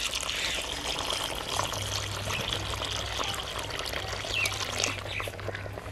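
Water poured in a steady stream from a metal pitcher into a clay pot of hot, steaming meat curry, splashing into the gravy.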